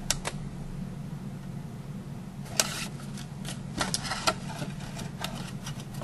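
Stiff cardstock being handled as a folded paper tray is slid and pressed into the corner of a paper box: a scattered series of short crisp clicks, taps and scrapes of card against card, the biggest about two and a half seconds in. A steady low hum runs underneath.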